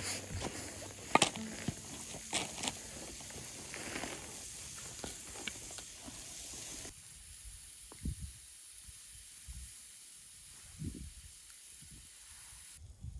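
Food sizzling in a pan over a wood fire: a steady hiss with a few sharp clicks and pops. The sizzle cuts off suddenly about seven seconds in, leaving a quieter stretch with a few soft thuds.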